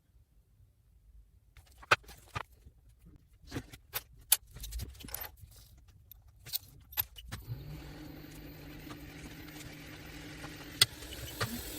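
Sharp clicks and taps of small metal tools against a phone being opened, then a steady electric hum that switches on about halfway through, with a few more clicks over it.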